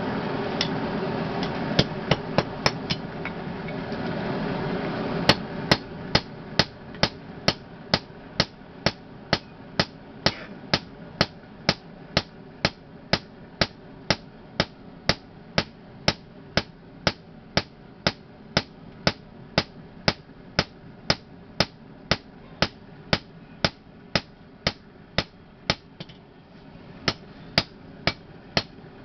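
Blacksmith's hammer striking a sickle blade being hand-forged, in a steady rhythm of about two blows a second with a short pause near the end. For the first five seconds a steady rumble runs under a few scattered blows, then stops.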